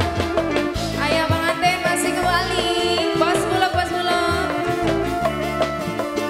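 Live dangdut band music with a woman singing over it and a running drum beat.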